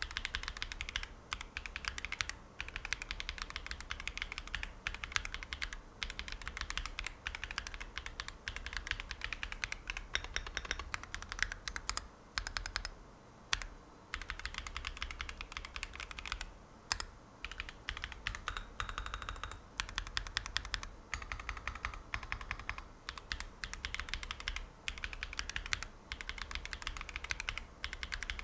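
Typing on an Akko ACR Pro 68 gasket-mount mechanical keyboard with linear Akko Crystal CS switches: a quick, continuous run of key clicks, with a few short pauses.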